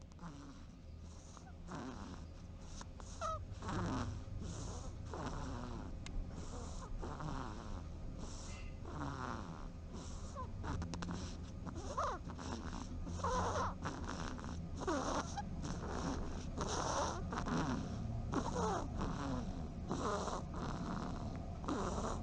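A sleeping cat and pheasant snoring: a run of short snoring breaths, a little under one a second, that grow louder over the first couple of seconds, over a steady low hum.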